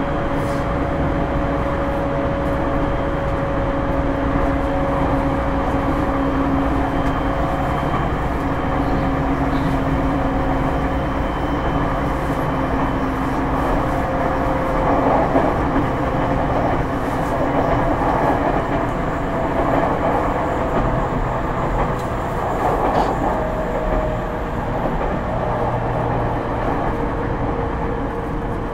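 E231-1000 series suburban electric train running at speed, heard from inside the car: a steady rumble of wheels on rail with a faint whine from the Hitachi IGBT VVVF inverter and traction motors, which slowly drops in pitch over the first half.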